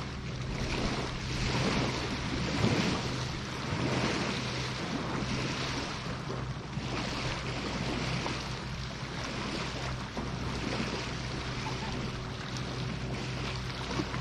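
Wind gusting over the microphone in an uneven hiss, with a steady low hum of a boat motor out on the lake underneath.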